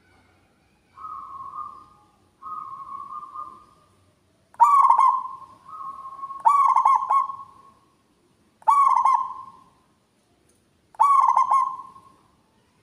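Zebra dove (perkutut) cooing. Two softer drawn-out coos are followed by four loud coos about two seconds apart, each starting with a quick stutter and then fading out.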